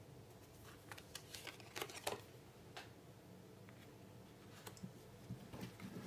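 Oracle cards being handled and laid down: faint, scattered taps and slides of card on card, with a few short clicks.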